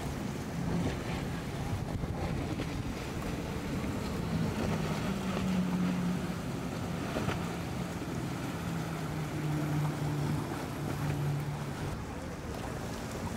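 Outboard engines of a center-console boat running at speed, a steady low drone over the rush of water and spray, with wind buffeting the microphone.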